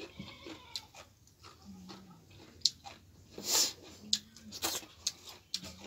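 Close-up eating sounds: wet chewing, lip smacks and clicks, with a short hiss about halfway through and three brief low hums.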